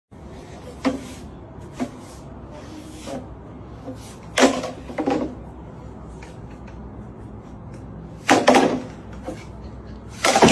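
Scattered sharp knocks and clicks of hard objects being handled, the loudest about four and a half and eight and a half seconds in, over a steady low hum.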